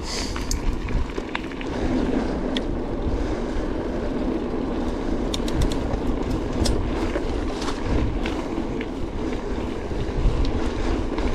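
Mountain bike tyres rolling over a rough dirt and gravel track: a steady rumble with scattered sharp ticks and rattles from the bike and stones, and wind buffeting the microphone.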